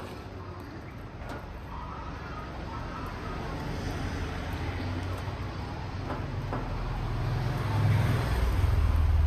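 A low, engine-like rumble that grows louder over the last few seconds, with a few faint knocks.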